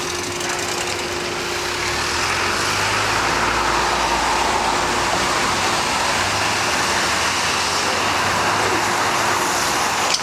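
Road traffic: cars driving past, with tyre and engine noise that swells about two seconds in and then holds steady.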